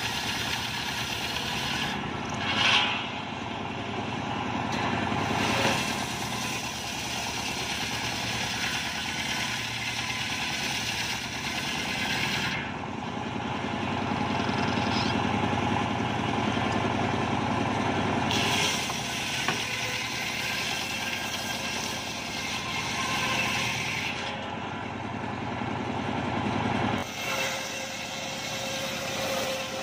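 Homemade engine-driven circular sawmill running steadily, its large blade ripping mahogany boards. The hiss of the cut swells and fades several times as boards are pushed through and the blade runs free between passes.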